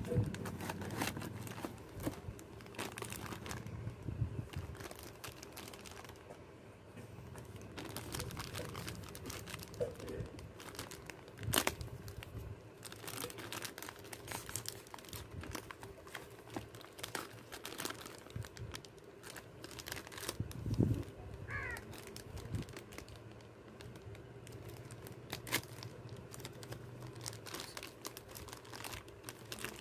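Clear plastic bag crinkling and rustling as a mini glue gun is handled and unwrapped from its packaging, with a few sharper snaps along the way.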